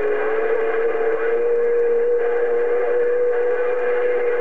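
A steady whistle-like tone on a CB radio channel, over band-limited static. It rises a little in pitch over the first couple of seconds and then holds level.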